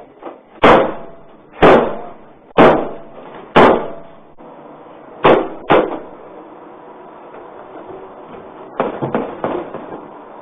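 Metal doors of a police transport van slammed shut: four loud bangs about a second apart, then two lighter bangs close together, and a quick run of smaller knocks near the end.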